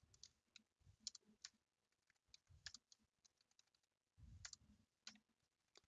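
Faint, scattered keystrokes on a computer keyboard as text is typed, with a brief soft low thump about four seconds in.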